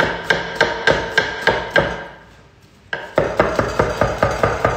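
Chef's knife thinly slicing an onion on a wooden cutting board, the blade knocking on the board about four times a second. The slicing stops for about a second midway, then picks up again at the same pace.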